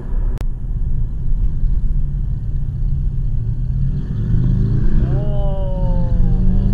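Steady road and engine rumble inside a car's cabin. About four seconds in, a loud motorcycle engine revs up and its note then slowly falls away. The bike's engine is noisy.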